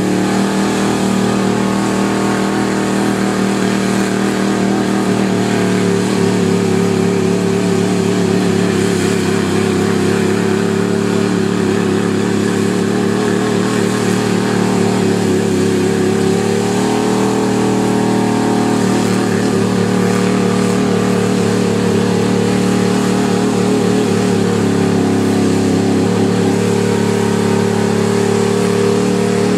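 Pickup truck engine running hard at high revs as the truck on 44-inch mud tires spins its wheels through deep mud. The pitch wavers steadily and shifts about 17 seconds in.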